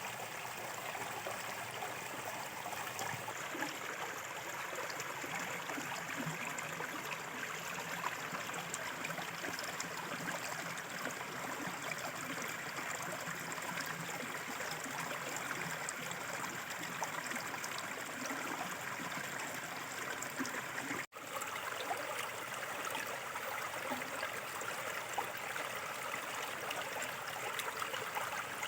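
Small river water flowing and trickling over its bed in a steady, even rush, with a split-second dropout about two-thirds through.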